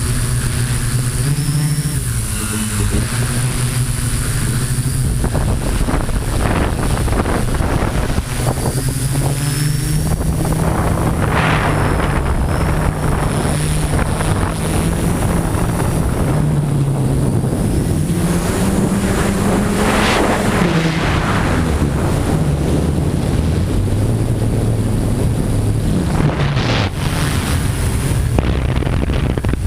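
A multirotor drone's motors and propellers running, their hum rising and falling in pitch as the drone manoeuvres, with wind rushing over the onboard microphone.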